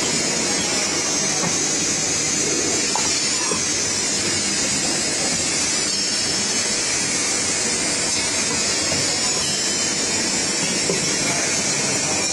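Automatic printing machine for cylindrical plastic containers running: a steady mechanical whir with no distinct rhythm.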